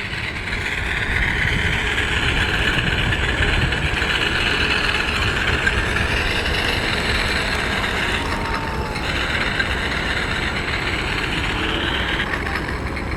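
Radio-controlled model airplane's motor running in flight, a steady whine that drops away briefly about eight seconds in, with heavy wind rumble on the microphone.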